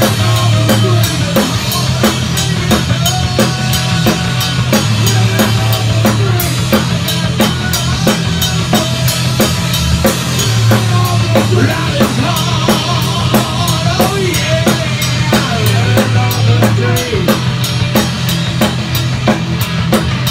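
A heavy metal band playing live in a rehearsal room: electric guitars and bass over a drum kit keeping a steady beat, with a man singing.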